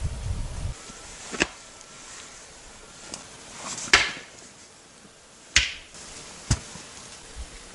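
Four sharp knocks, spaced one to two and a half seconds apart, the loudest about four seconds in, like blows on wood. A brief low rumble in the first second.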